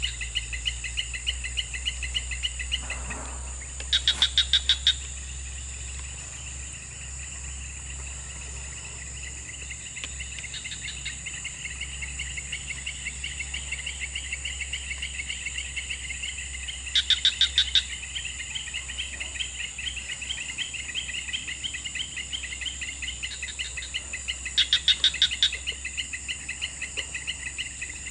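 A swamp chorus of insects: a steady high buzz and a continuous fast pulsing chirp. Three times a louder call stands out, each a short burst of rapid pulses lasting about a second.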